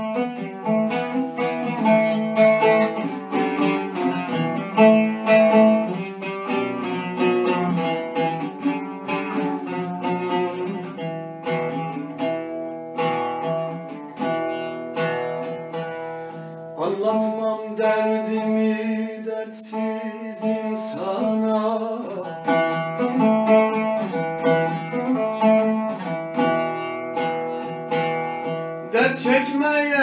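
Solo oud playing a melodic instrumental introduction in quick runs of plucked notes. A man's voice comes in singing near the end.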